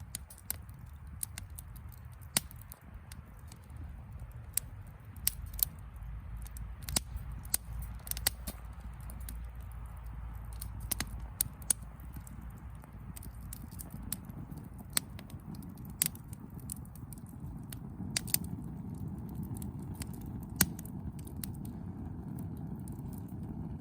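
Wood fire burning in a Firebox Freestyle fire pit (two Freestyle stoves combined as a Firepit 8), crackling with irregular sharp pops.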